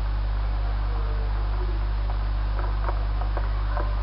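Steady electrical mains hum under a constant hiss, with a few faint soft ticks in the second half.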